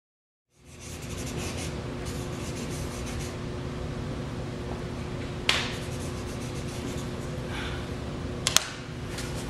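Drawing strokes scratching and rubbing across paper over a steady room hum, starting about half a second in; two sharp clicks, one midway and one near the end.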